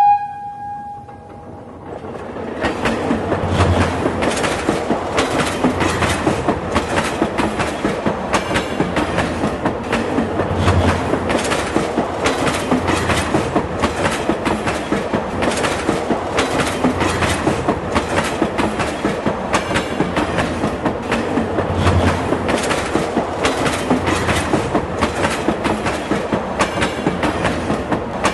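A train running on the rails, its wheels clacking in a steady rhythm over the rail joints. It comes in after a short single-note horn that fades away within the first second.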